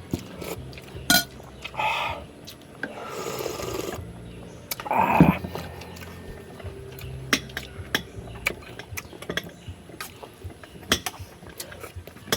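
Eating at a table: scattered light clicks of cutlery on dishes, a short liquid hiss about three seconds in, and a louder brief sound about five seconds in.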